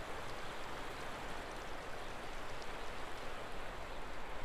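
Shallow stream flowing over a pebble bed, a steady even rush of water.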